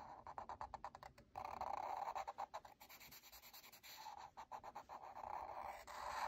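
Felt-tip marker scratching across paper in quick back-and-forth strokes, colouring in a patch. The strokes are loudest in a stretch starting about a second and a half in.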